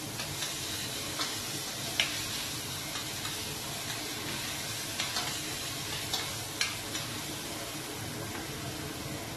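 Onion and tomato frying in oil in a stainless steel pot: a steady sizzle, with a few light clicks as a spoon stirs against the pot.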